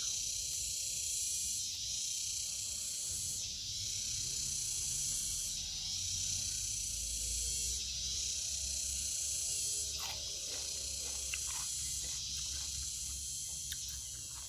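Steady high-pitched insect chorus that fades briefly about every two seconds, over a low rumble, with a few faint clicks about ten to twelve seconds in.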